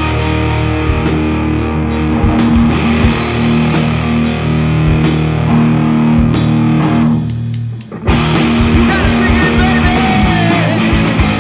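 Heavy rock song with distorted electric guitars, bass and drums. About seven seconds in the sound thins out and dips briefly, then the full band crashes back in at about eight seconds.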